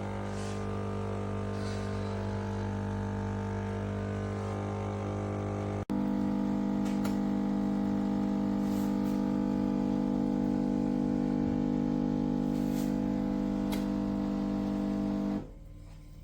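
Cecotec Power Instant-ccino semi-automatic coffee maker running with a steady electric buzz. About six seconds in it switches abruptly to a louder, higher hum, which cuts off near the end.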